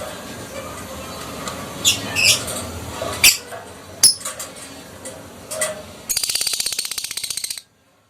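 Lovebird calling: several short, sharp squawks, then a rapid chattering trill (ngekek) lasting about a second and a half that cuts off suddenly.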